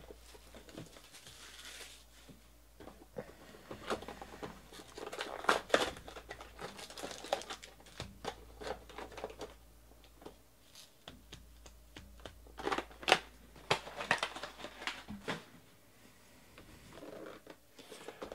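Hands opening a 2019 Panini Prizm Draft Picks baseball card box: plastic shrink wrap crinkling and tearing, foil card packs rustling, and cardboard boxes tapping and sliding on the table, in irregular bursts.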